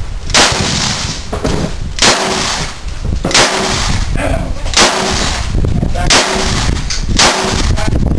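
Six shots from a .38 Special revolver, fired at a steady pace about one to one and a half seconds apart, each with a short echoing tail.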